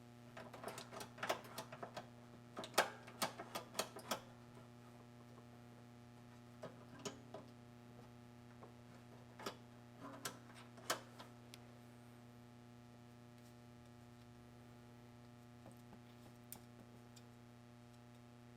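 Light clicks and taps of hand tools and metal parts being handled during disassembly of a washer's clutch assembly, in a quick cluster over the first four seconds, a few more around ten seconds in and a couple near the end, over a steady low hum.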